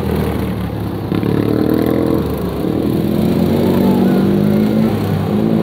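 Racing lawn tractor engines running hard as several tractors pass close by. Several engine notes overlap, each rising and falling in pitch.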